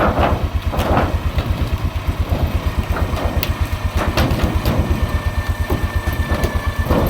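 Quad (ATV) engine idling with a fast, even low pulse. Scattered short knocks and creaks sound over it, and a faint steady high whine starts about five seconds in.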